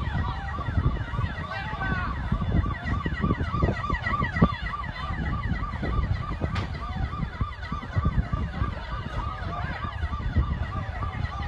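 Emergency vehicle sirens wailing in a fast, repeating rise-and-fall several times a second, with other sirens overlapping above them. A dense low rumble runs beneath.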